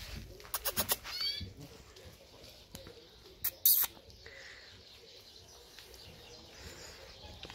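Cloth rag tugged and shaken in a tug-of-war with a German shepherd puppy: quick rustling snaps in the first second and two loud flaps about halfway through. A few short high chirps sound about a second in.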